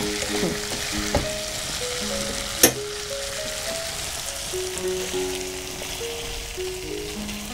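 Stir-fried chicken and capsicum sizzling in a wok while a wooden spatula stirs and scrapes it, with one sharp click about two and a half seconds in. Soft background music plays underneath.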